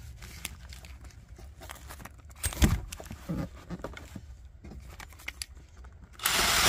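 Light clicks and knocks of parts being handled, then near the end a cordless drill starts running with a steady whir, driving a self-tapping screw into the car's sheet metal.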